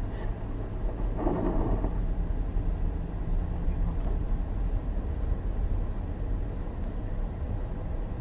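Steady low road rumble inside a car cabin as the car drives on a snow-covered road over packed snow, tyre and engine noise together. The car picks up speed.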